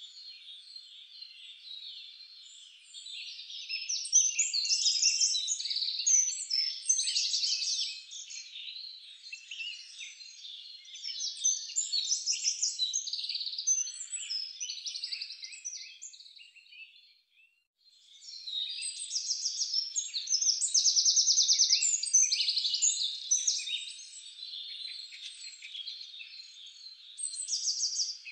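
A chorus of small songbirds chirping and trilling, dense and continuous, with a gap of about a second a little past the middle.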